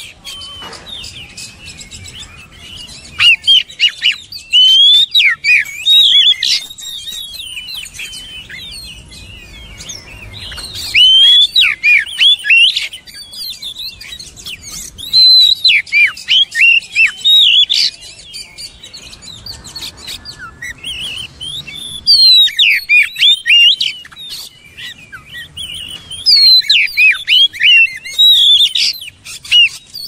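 Oriental magpie-robin singing: loud bursts of rapid, varied whistles and chirps, about five phrases of two to four seconds each with quieter pauses between them.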